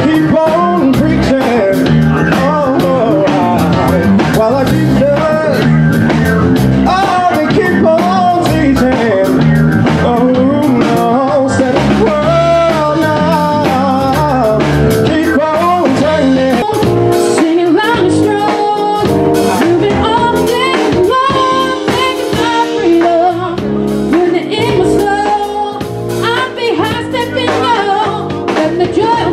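Blues music: a singing voice over a band with guitar and drum kit keeping a steady beat.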